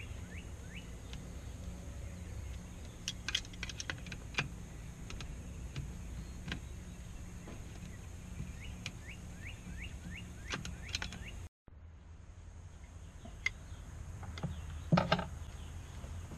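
Scattered clicks and taps of a screwdriver and plastic fuel hose fittings being worked loose on an outboard's fuel pump, over a steady low background hum. A bird chirps in short rising notes, a few per second, at the start and again about halfway through.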